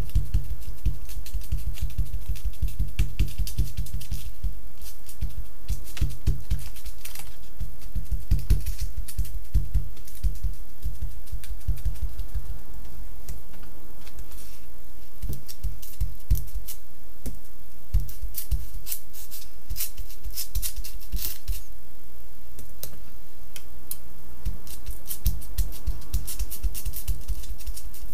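Irregular tapping, rustling and rubbing as hands press stamps and stencils onto a crinkly foil-bubble (Reflectix) car sunshade and dab ink from an ink pad, with many small clicks over a low hum.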